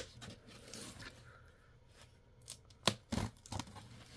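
Handling noise: a few sharp clicks and knocks, several close together about three seconds in, with soft rustling and scraping in between.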